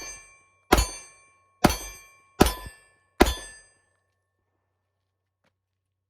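Five gunshots fired about one a second, each followed by a short metallic ring, then the firing stops.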